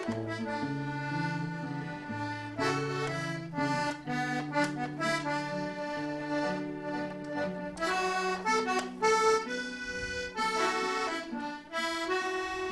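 Button accordion playing a solo instrumental passage: a slow melody over long-held bass notes and chords, with no singing.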